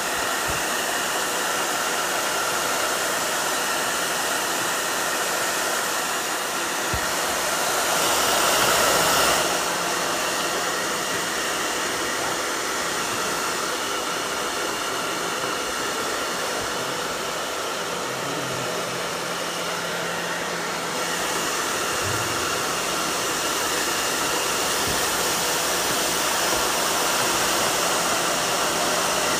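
Handheld hair dryer running steadily: a rush of blown air with a low motor hum under it, swelling briefly about eight seconds in.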